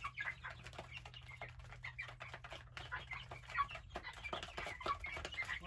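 Young chickens feeding, with many quick pecking taps and faint short chirps and clucks.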